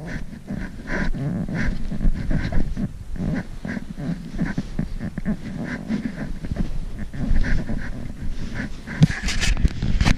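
Footsteps crunching through snow at a walking pace, about one and a half steps a second, over a low rumble of wind on the microphone. There is a louder scrape near the end.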